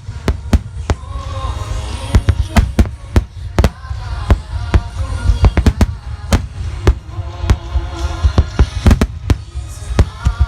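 Fireworks shells of the Phoenix salvo bursting in rapid, overlapping succession, several sharp booms a second throughout, with music playing underneath.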